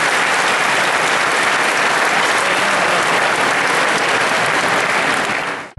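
Audience applauding steadily, cut off suddenly near the end.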